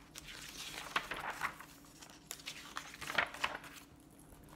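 Pages of a picture book being turned and handled: two spells of paper rustling with small clicks and knocks.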